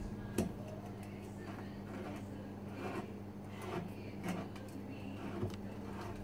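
Short clicks and scrapes of hands working the capsule off the neck of an old wine bottle and turning the bottle on a wooden bar top, the sharpest about half a second in, over a steady low hum.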